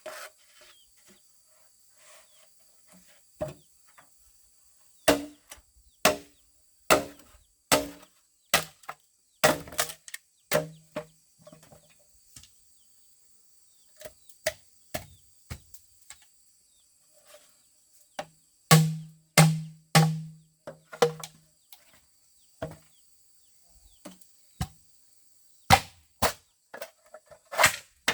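Chopping strikes on wood: a series of sharp, irregularly spaced blows, some coming in quick clusters, a few with a short low ring after them.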